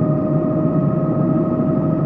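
Helicopter noise heard from inside the cabin: a steady high whine over a dense, fluttering low rumble from the engine and rotors.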